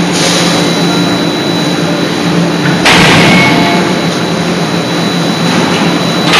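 C92K-80 CNC hydraulic forging hammer working: a loud continuous machine roar with a steady hum, and one sudden loud stroke about three seconds in that fades over about a second.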